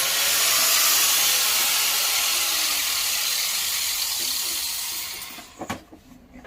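Angle grinder running against the steel tube with a steady, loud hiss of abrasive on metal, then fading away about five seconds in as the grinder is lifted off and stopped.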